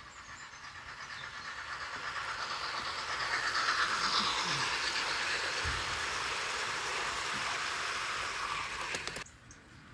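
00-scale model train rolling past on the garden layout's track, its wheels making a steady rushing clatter on the rails. It grows louder over the first few seconds as the coaches come close, holds, and stops abruptly about nine seconds in.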